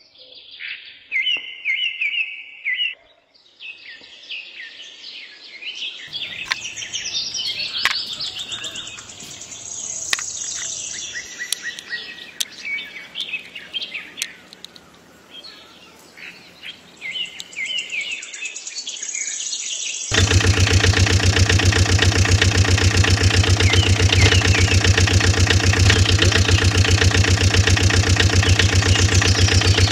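Small birds chirping and twittering. About two-thirds of the way in, a loud, steady, engine-like drone with a fast even pulse starts suddenly and takes over.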